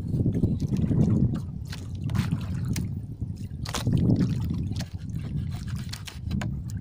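Water sloshing and lapping against a small wooden boat in uneven low surges, with scattered sharp clicks and knocks from a knife cutting fish bait on a wooden paddle blade.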